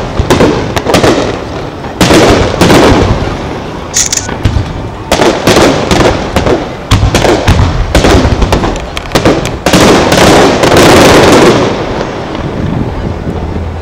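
Aerial firework shells bursting in quick succession: sharp bangs with dense clusters of rapid crackling, and a brief high whistle about four seconds in. The barrage eases off near the end.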